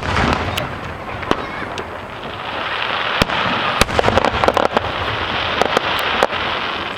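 Aerial fireworks: a loud burst right at the start, then a steady crackling hiss, with a rapid flurry of sharp crackling pops from about three seconds in until near the end.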